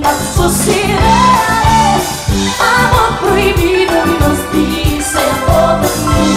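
A woman singing an amplified pop song into a microphone over a backing track with a steady drum beat.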